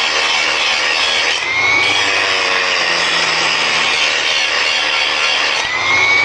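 Milwaukee 9-inch cordless angle grinder with a Hercules grinding wheel grinding steadily under load. Twice its pitch dips and climbs back in a rising whine as the wheel bites and eases off.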